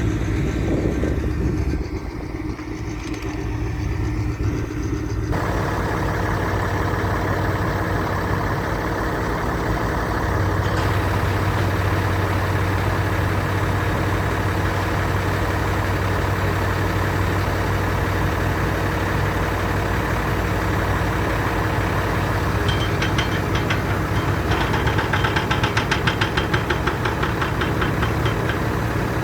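Road roller's engine running steadily. The sound shifts abruptly about 5 and 11 seconds in, and a fast, even clatter joins it near the end.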